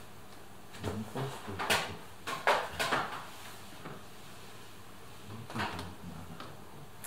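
Plastic clicks, knocks and scraping as parts of a car's interior door trim are handled and worked loose, in a cluster between about one and three seconds in and again briefly near the end.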